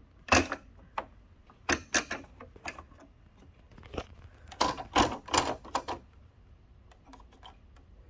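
Plastic clicking and rattling from a window air conditioner's louver-vane assembly being handled: a string of sharp irregular clicks, busiest about five seconds in, then dying away.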